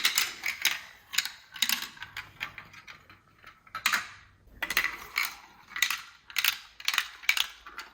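Irregular, sharp plastic clicks and clatter from a VTech Marble Rush plastic marble-run set, the pieces and marbles knocking against the plastic track.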